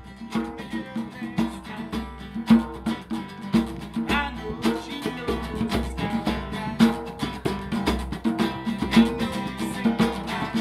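Acoustic guitar strummed with a hand drum beating out a steady rhythm: an instrumental passage of a song.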